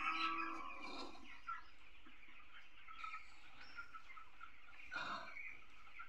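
A flock of young broiler chicks peeping and chirping steadily in a crowded poultry shed. There are louder, busier bursts in the first second and again about five seconds in.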